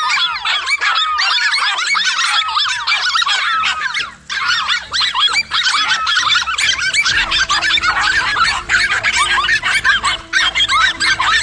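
Several small dogs barking and yelping excitedly in a rapid, overlapping, high-pitched chorus, with a brief break about four seconds in.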